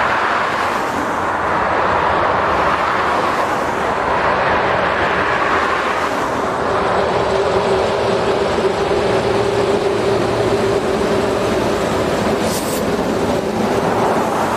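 A long freight train hauled by two EF class electric locomotives passing close by, its wagons rolling past in a steady, loud rumble of wheels on rail. A steady tone joins the rumble about six seconds in.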